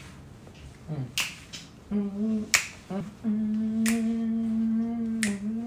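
Finger snaps keeping a slow, steady beat, about one every second and a half, while a man hums a short low note and then holds a long, steady low note from about halfway through.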